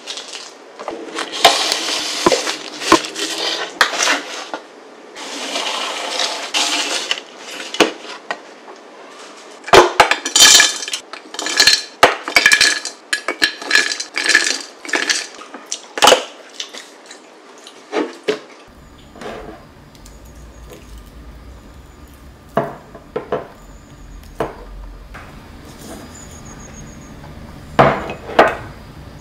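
A spatula scraping and breaking up crisp baked chocolate granola on a metal baking sheet, then granola clusters dropped by hand into a glass jar in a quick run of clicks and clinks. Later, scattered knocks and a few loud clinks near the end from a spoon in a small ceramic bowl of yogurt.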